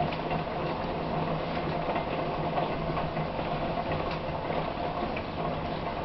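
Steady rain on the house, heard from inside as a dense, even rush of fine ticks, over a faint steady hum.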